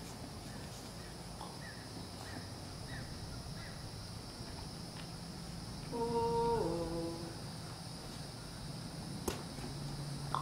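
A steady high insect drone with faint repeated chirps early on. About six seconds in, a woman gives a short hum that drops in pitch, and a single sharp click comes near the end.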